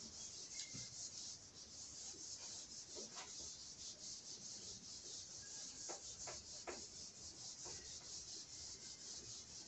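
Whiteboard eraser rubbed back and forth across a whiteboard, a faint run of repeated wiping strokes with a few light knocks in between.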